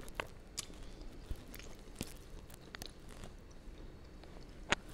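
A person chewing food close to the microphone, with scattered soft mouth clicks and one sharper click near the end.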